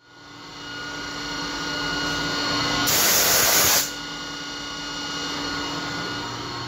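CNC machining center spindle running as an end mill cuts a keyway slot in a metal shaft, a steady machine whine with several held tones and a rushing sound. About three seconds in, a loud hiss lasts about a second, then the steady running goes on.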